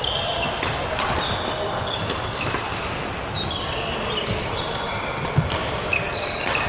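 Badminton rally: several sharp racket hits on the shuttlecock, the loudest about five and a half seconds in, among short high-pitched squeaks of sports shoes on the wooden court floor.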